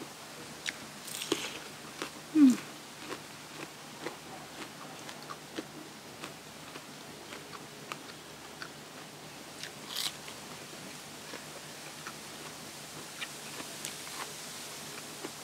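Close-miked eating: crunchy bites and wet chewing with scattered small mouth clicks. The loudest bite comes about two and a half seconds in, and there is another crunchy burst around ten seconds.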